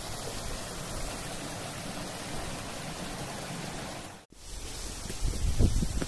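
Stream water running over rocks, a steady even rushing. After a sudden cut a little over four seconds in, a few low thumps and knocks come through, the loudest near the end.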